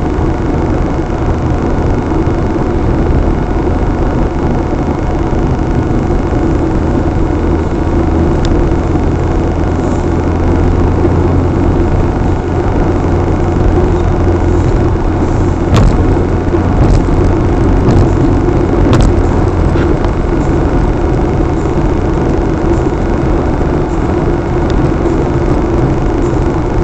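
A car driving at highway speed, heard from inside the cabin: steady engine and tyre-on-road noise, with a couple of short sharp clicks around the middle.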